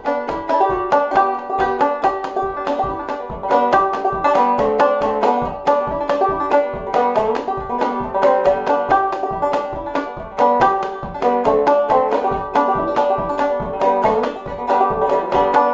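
Five-string banjo played clawhammer style in open G tuning (gDGBD), a quick reel with a steady, fast run of plucked notes.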